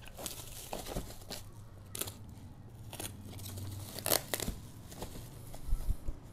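Plastic bubble wrap and foam packaging crinkling and rustling as wrapped items are handled and pulled from a cardboard box, with a few sharp crackles, the loudest about four seconds in.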